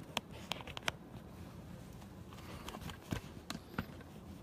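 Handling noise of a phone being fiddled with on a small holder: a few sharp clicks and taps in the first second, then a few more around three seconds in.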